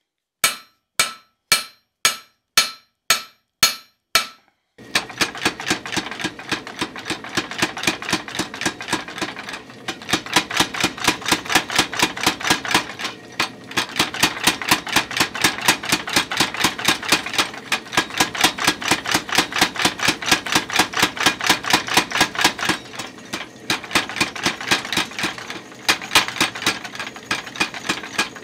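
About eight ringing hand-hammer blows on hot steel over the anvil, roughly two a second. About five seconds in, a power hammer takes over with a fast, steady run of blows on the glowing bar, drawing it out.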